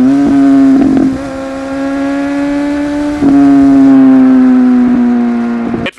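Inline-four superbike engine running at high, steady revs under way. It eases off about a second in and pulls harder again a little past three seconds, then drops away just before the end.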